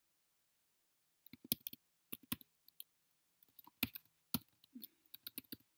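Typing on a computer keyboard: irregular key clicks in short runs, starting about a second in.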